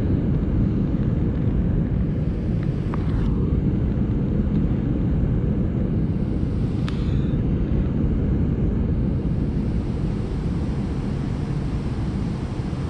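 Steady low rush of water pouring through a dam spillway, with wind buffeting the microphone. A single faint tick about seven seconds in.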